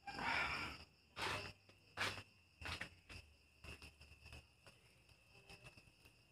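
Crickets chirping steadily in the background. Several short rustling knocks sound over them, mostly in the first three seconds.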